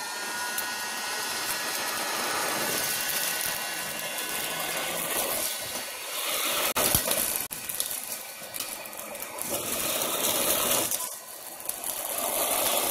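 Electric heat gun running, its fan blowing a steady rush of hot air onto charcoal in a disposable grill to get it lit. A few sharp clicks sound over the rush, and it dips briefly near the end.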